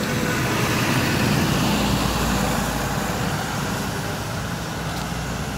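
A road vehicle running past: a steady rush of tyre and motor noise that swells a second or two in and then eases off.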